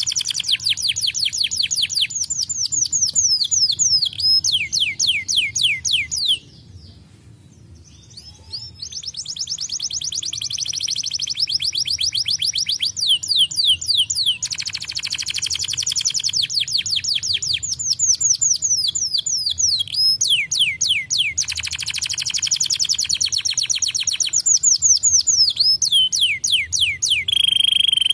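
Canary singing long rapid trills of repeated falling whistled notes, with a short break about six seconds in and a steady held note near the end.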